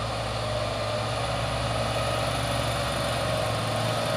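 Diesel engine of a Hino trailer truck laden with heavy equipment, running with a steady low hum.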